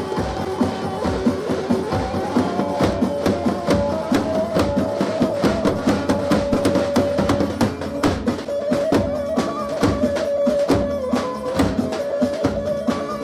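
Live halay dance music: a davul, the large double-headed drum beaten with a stick, keeps a quick, steady dance beat under a sustained melody line.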